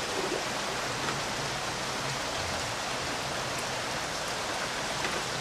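Water running steadily through a Heath stack egg incubator: a continuous, even rush like light rain, with no breaks.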